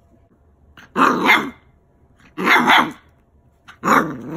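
Six-week-old puppy barking three times, each bark about half a second long and spaced about a second and a half apart.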